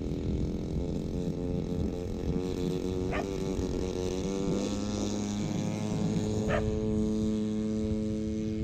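Stinger 26cc two-stroke gas engine of an RC Beechcraft Staggerwing model running steadily at low throttle as the plane taxis on the grass, its note shifting about four and a half seconds in. Two brief higher chirps come about three seconds apart.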